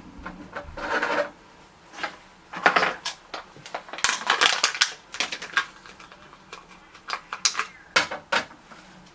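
Ink cartridge packaging being opened by hand: bursts of plastic crinkling and tearing, then a few sharp clicks near the end.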